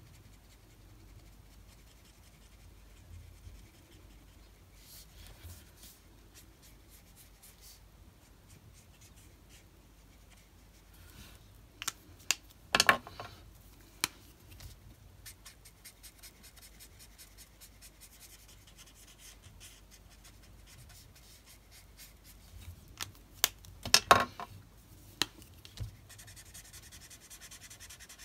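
Ohuhu alcohol marker nibs scratching faintly over card stock as a paper piece is coloured, with two bursts of sharp clicks, about twelve seconds in and again around twenty-four seconds, as markers are swapped.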